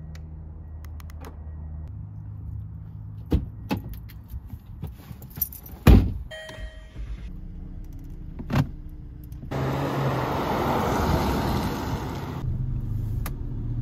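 Land Rover LR2 SUV engine idling with a low steady hum, with a few sharp clicks and one loud thunk about six seconds in. After about nine and a half seconds, louder road and engine noise as the SUV drives off, then quieter steady noise of driving.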